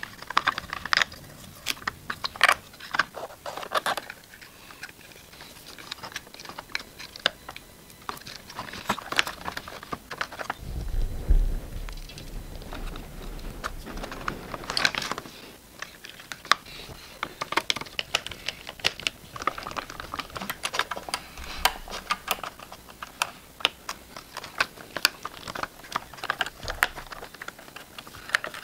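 Hands handling a studio monitor's amplifier circuit board and aluminium heatsink bracket while working it loose: irregular small clicks, taps and rattles, with a low bump about eleven seconds in.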